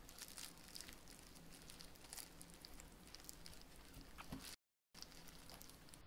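Faint knife work: a kitchen knife slitting a raw chicken drumstick on a plastic cutting board, with small scattered clicks and a soft tap about four seconds in.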